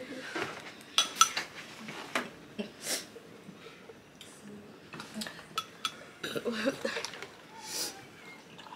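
Cutlery and dishes clinking: a series of short, irregular clinks and taps.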